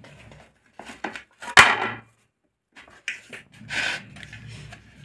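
Butter paper (baking parchment) peeled off the bottom of a baked sponge cake, crackling and rustling in several bursts. The loudest burst is about a second and a half in and starts with a sharp tap; another comes near the end.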